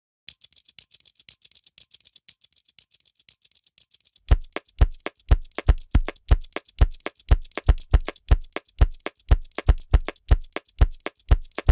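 A percussion beat tapped out on stationery: a run of quick, light clicks, then from about four seconds in a steady beat of deep thumps, roughly two a second, with clicks falling between them.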